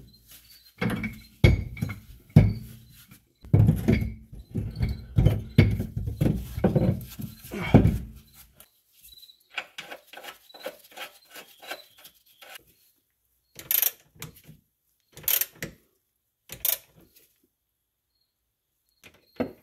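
Metal knocks and clunks of bolts and parts being handled under a car, then a hand ratchet clicking in a quick regular run as a rear differential mounting bolt is tightened, with a few short sharp ratchet rasps near the end.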